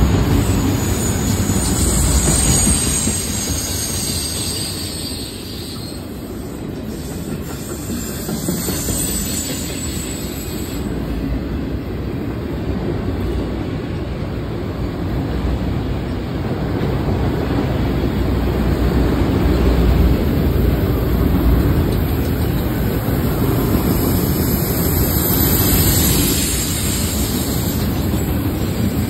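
Freight train's autorack cars rolling past: a steady rumble of steel wheels on the rails, with a thin high wheel squeal coming and going near the start and again near the end.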